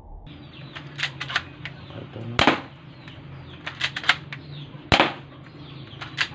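Spring-type airsoft pistol being handled and fired: a string of sharp clicks, with two louder snaps about two and a half seconds apart.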